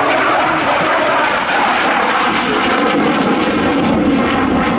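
Saab JAS 39 Gripen's Volvo RM12 turbofan passing in a display flight: a loud, steady jet rush, with a crackling edge in the second half.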